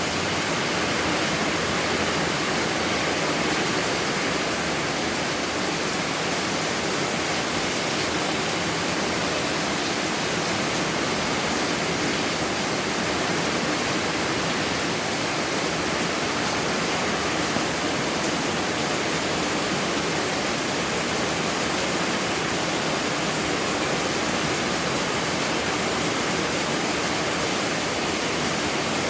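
Heavy rain pouring down in a steady downpour, an unbroken hiss with no let-up.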